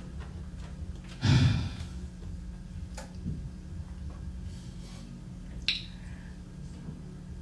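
A pause in speech: one breath or sigh into a handheld microphone about a second in, over a steady low hum, with faint clicks about three seconds in and again near six.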